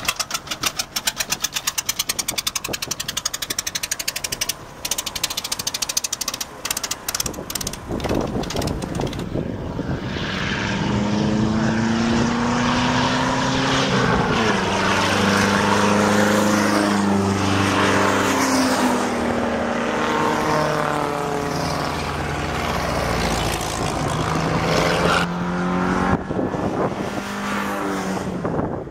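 Ford Model T racer's four-cylinder engine catching on a push start and firing in rapid, even pops, which thin out and turn ragged after a few seconds. Then pre-war race cars run on the track, their engines rising and falling in pitch as they accelerate and pass.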